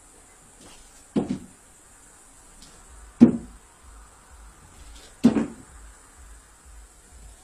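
Three dull knocks, evenly spaced about two seconds apart.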